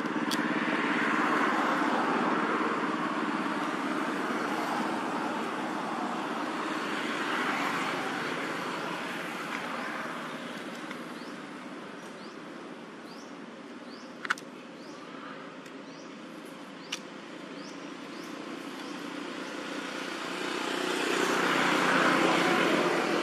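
Road traffic going by: the hiss of passing vehicles swells and fades, loudest near the start and again near the end, with a sharp click about fourteen seconds in.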